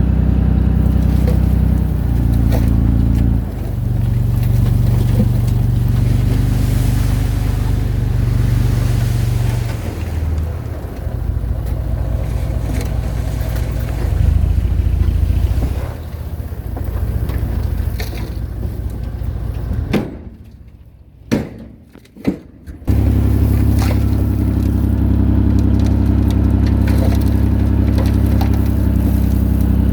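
Komatsu D21A bulldozer's diesel engine running, its pitch shifting several times as the load and throttle change. The engine sound drops away for about three seconds two-thirds of the way through, leaving only a couple of clicks, then returns steady.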